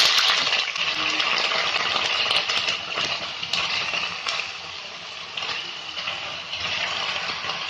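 Raw potato matchsticks sizzling in hot mustard oil in a kadai just after going in, a steady hiss that slowly eases off, with a few sharp pops and crackles through it.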